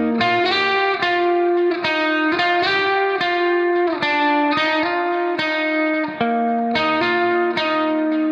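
Background music: a plucked guitar melody in steady notes, with an effects-unit sound.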